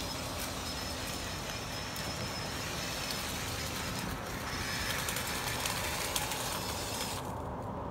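Electric leaf blower running steadily, forcing air through a dryer vent duct, a continuous rush of air with a faint high motor whine. A little after seven seconds in the higher part of the noise cuts off suddenly.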